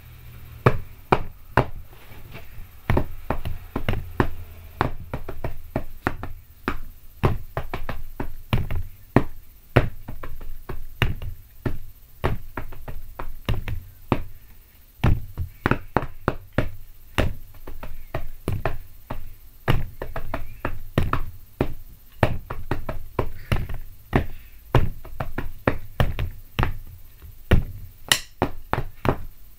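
Drumsticks beating on a bed and pillows as a stand-in drum kit, playing a steady, fast rock rhythm of dull thuds and sharper knocks.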